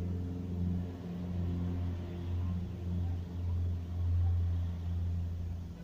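Car engines running at low speed, a low drone that swells about four seconds in as a car drives slowly past close by.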